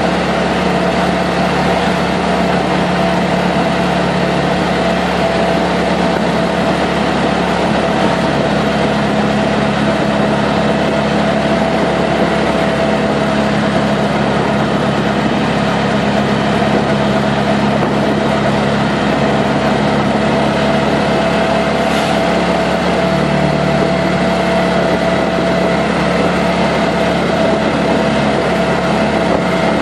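CNG auto-rickshaw's small engine running steadily while under way, heard from inside the passenger cabin: an even drone with a hum over road noise.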